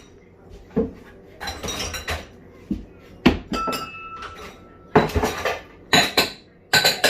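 Dishes and cutlery clattering as a dishwasher is hurriedly unloaded: a run of quick clinks and clanks of plates, glasses and silverware being lifted out and set down, one piece ringing briefly about three and a half seconds in.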